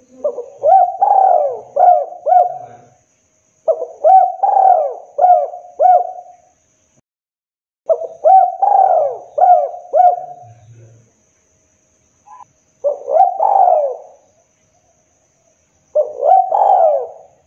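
Spotted dove cooing in five phrases a few seconds apart. The earlier phrases have about four notes and the last two are shorter, with two or three notes.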